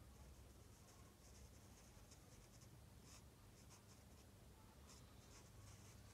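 Black calligraphy marker drawing on paper: faint, short scratching strokes of the tip, in quick runs with brief pauses between, over a faint low hum.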